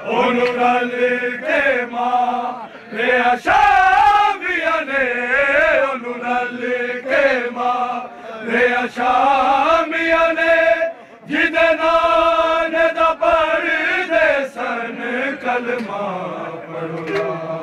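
Men chanting a noha, a Shia lament for Imam Hussain, in long held, wavering sung lines, with a short break about eleven seconds in.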